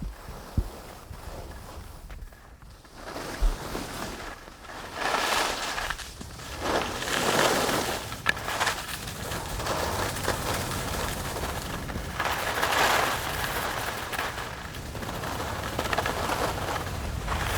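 Skis scraping and carving across snow in a run of turns, the hiss swelling and fading every couple of seconds, with low wind rumble and a few sharp clicks.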